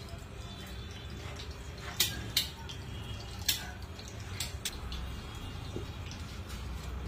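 Wet, sputtering clicks and pops, about five in all, from a plastic piping bag as sauce is squeezed out of its nozzle in thin lines. A steady low hum runs underneath.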